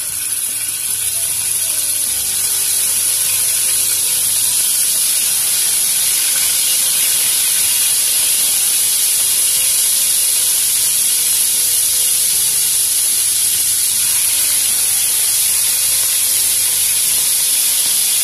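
Marinated beef slices sizzling in hot cooking oil in a wok: a loud, steady, high hiss of frying meat that cuts off abruptly at the end.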